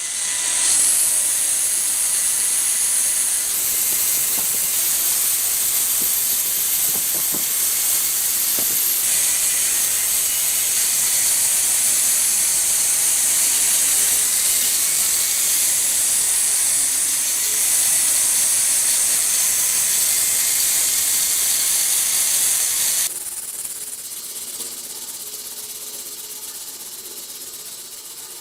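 Angle grinder abrading rusty metal: a loud, steady hiss of abrasion over a faint motor whine. Near the end the grinding stops abruptly and the sound drops much quieter.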